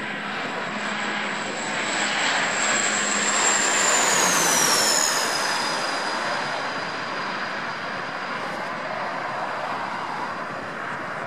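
Twin-engine turboprop airliner, a Bombardier Dash 8 Q400, passing low overhead on its landing approach. A steady drone with a high whine; both the whine and a low propeller hum drop in pitch as it passes over, about four to five seconds in. The sound is loudest there and then fades as the aircraft flies away.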